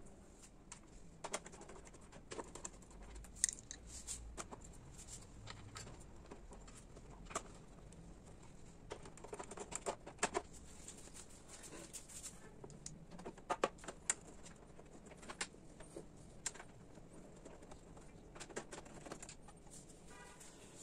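Faint, scattered small clicks and taps of screws being set in place by hand on a motorcycle's rear grab handles and tail fairing, a sharper tick every second or so.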